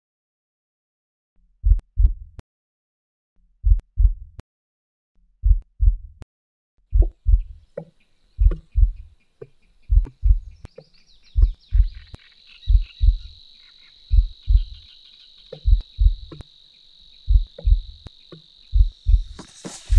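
A heartbeat: paired low lub-dub thumps that come gradually quicker. A faint, steady high chirring of insects fades in from about eight seconds in and swells near the end.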